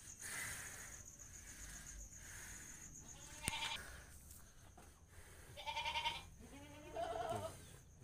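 Short bleating livestock calls, three in all, starting about three seconds in, with a sharp click just as the first call begins. Under them runs the steady, pulsing trill of night crickets.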